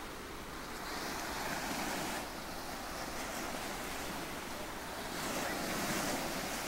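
Ocean surf as a soothing background: a steady wash of waves that swells and eases in two slow surges.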